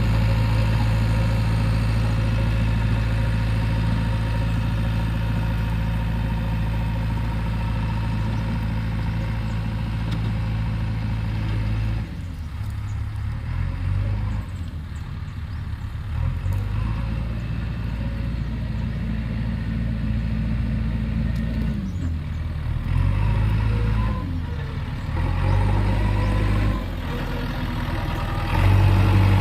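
Diesel engine of a JCB 3DX backhoe loader running at a steady speed. About halfway through, its note drops, then rises and falls again and again as the engine speed changes under work.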